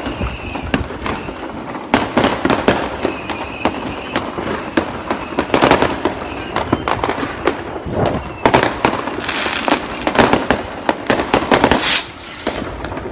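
Fireworks and firecrackers going off all around: a dense run of bangs and crackling, thickest about two-thirds of the way through, with a faint whistle of a rising rocket early on.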